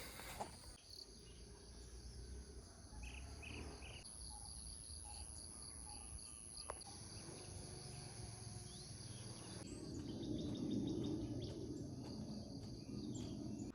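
Insects trilling and buzzing steadily at a high pitch, with a few short chirps about three seconds in.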